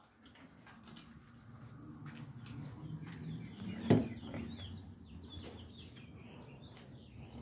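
Small birds chirping repeatedly over a low steady rumble, with one sharp knock about four seconds in.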